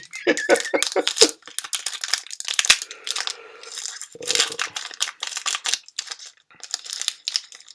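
Foil booster-pack wrapper crinkling and tearing open: a dense run of irregular crackles.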